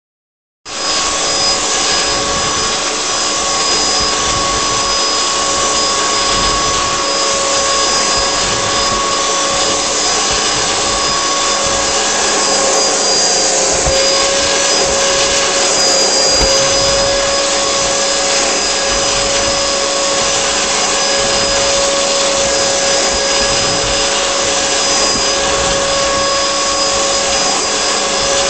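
Vacuum cleaner running steadily, a constant motor whine over a rush of air, switched on about half a second in.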